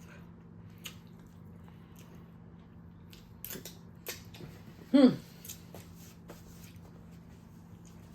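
Close-up eating sounds of someone eating barbecue ribs: chewing with short sharp mouth clicks and smacks, and one brief falling hum of the voice about five seconds in.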